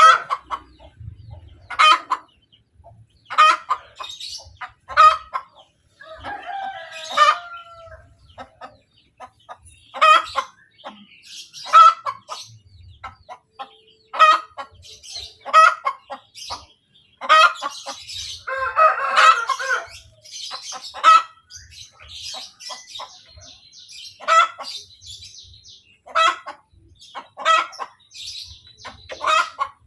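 Hen cackling after laying an egg: a run of short, sharp clucks about once a second, with a longer drawn-out call about 19 seconds in.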